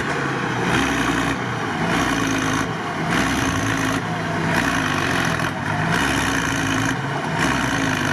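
Stuck Mercedes-Benz Unimog truck's engine running in deep swamp mud, its sound swelling and easing roughly every second and a half.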